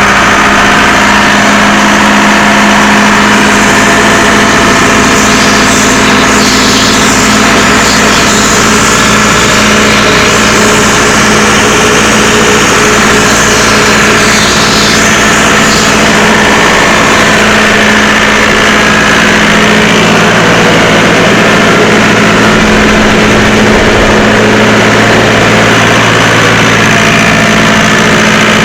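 Diesel engine of a Doosan 7/71 towable air compressor running steadily just after starting, a loud continuous drone with a steady hum. Its lower note shifts slightly about twenty seconds in.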